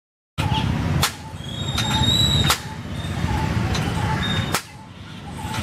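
Outdoor street noise: a low, uneven rumble with brief high tones, broken by several abrupt cuts.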